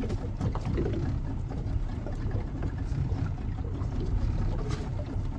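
Outboard motor of a small open fishing boat running: a low steady rumble, with a few light knocks.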